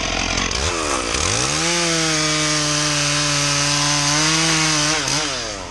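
Gasoline chainsaw revving up about a second in and running at full throttle as its bar cuts into the base of an ash trunk, then easing off near the end.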